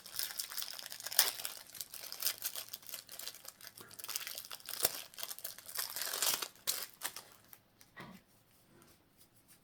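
Plastic wrapping around a bundle of Pokémon energy cards being torn open and crinkled, with sharp crackles, dying down about seven and a half seconds in.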